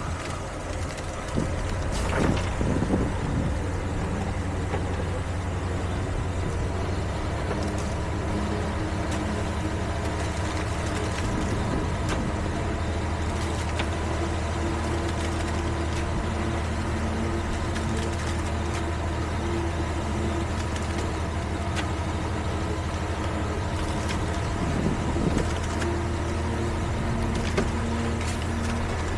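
Heavy diesel construction machinery running steadily, its engine note shifting slightly a few times, with a few knocks about two seconds in.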